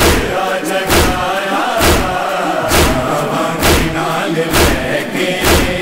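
A group of male voices chanting a Punjabi noha (Shia lament) in unison. A heavy, even thump marks the beat about once a second.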